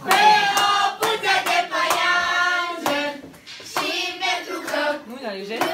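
A group of people singing together while clapping their hands along, with a short break in the singing about halfway through.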